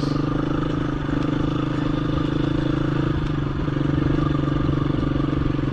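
KTM 350 EXC-F dirt bike's single-cylinder four-stroke engine running at a steady, low engine speed while the bike is ridden along a trail.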